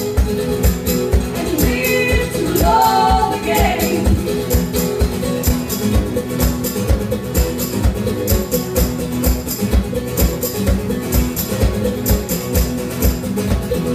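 Live band music: guitars played with a regular beat, with a sung vocal line in the first few seconds that gives way to an instrumental passage.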